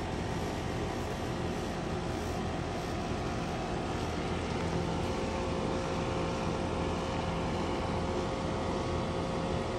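2007 Heil QuietComfort 2.5-ton AC condenser running steadily: the Copeland reciprocating compressor hums together with the three-blade condenser fan. A constant hum with a few held tones, and the fan's air buffets the microphone held directly over it.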